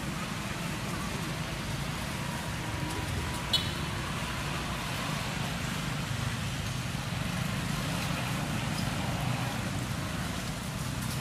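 Steady low rumble of road traffic going by. One brief sharp click about three and a half seconds in.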